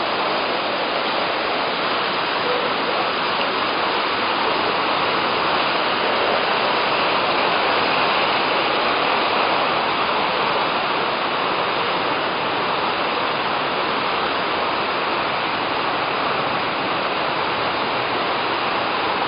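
Waterfall rushing, a steady, unbroken roar of falling water close to the microphone.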